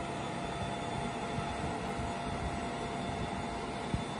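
Iskander missile launcher's machinery running steadily as the erector raises the missile towards vertical: an even mechanical hum with a thin constant whine. A single short click sounds near the end.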